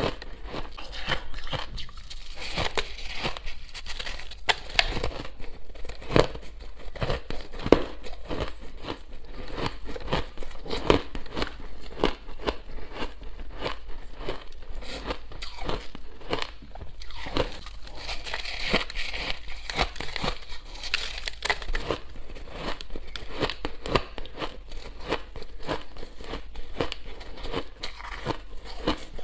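Close-miked chewing of crushed ice: a dense, continuous run of crackling crunches, with fingers raking through the tub of crushed ice at times.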